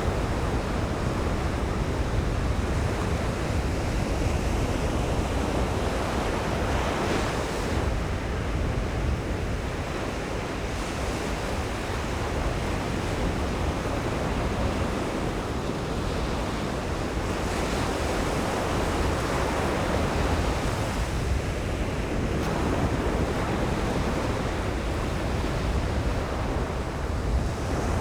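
Ocean surf breaking on a sandy beach: a continuous wash of waves, swelling as sets come in a few times.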